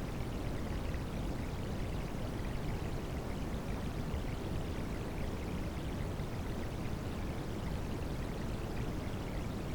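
Rain sounds mixed with white noise: a continuous, even rush of water noise, deepest in the low end, with no single drops or breaks standing out.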